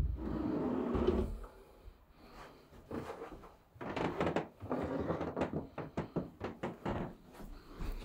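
An MDF drawer sliding on its runners for about a second, then a quieter pause, then a quick run of short soft knocks and rustles.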